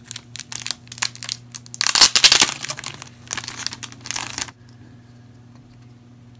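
Plastic packaging crinkling and crackling as it is handled and pulled off, loudest about two seconds in and stopping suddenly about four and a half seconds in.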